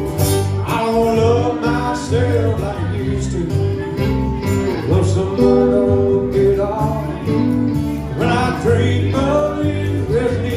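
A live country band playing: strummed acoustic guitar, electric guitar, electric bass and cajón keeping a steady beat, with a bending melodic line over the chords.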